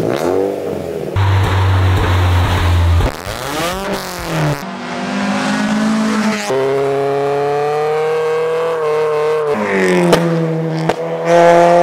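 Short clips of Mazda MX-5 NC four-cylinder engines on aftermarket exhausts, cut together one after another. The exhaust note rises and falls with the revs and changes abruptly at each cut.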